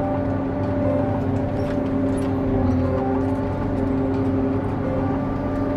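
John Deere 8800i self-propelled forage harvester working under load, heard from inside the cab: a steady, unchanging machine drone with several held tones over a low rumble.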